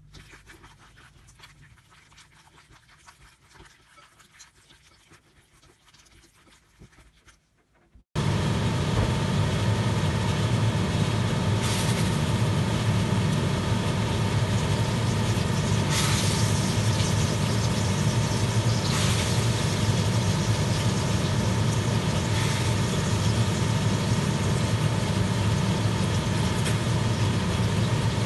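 Faint squelching of minced meat being mixed by hand for the first eight seconds or so. Then a sudden switch to turkey-and-pork cutlets frying in coconut oil in a pan: a loud, steady sizzle with a low hum under it and a few clicks of a metal spatula.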